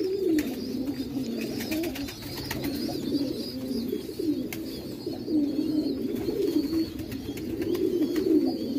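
Domestic pigeons cooing, several low wavering coos overlapping without a break.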